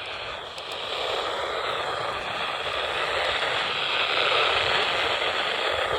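Radio static: a steady hiss from a radio receiver picking up no clear signal, growing somewhat louder after the first second.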